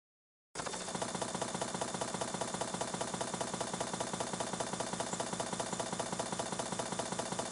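Sustained automatic machine-gun fire: a rapid, even rattle of shots that starts about half a second in and keeps going without a break.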